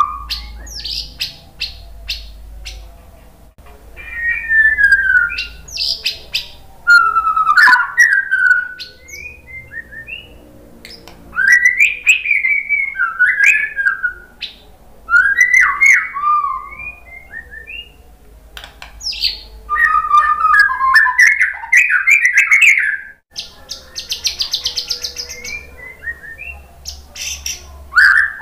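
White-rumped shama (murai batu) singing a loud, varied run of phrases: whistles gliding up and down, quick trills and a buzzy rattle, with short pauses between phrases.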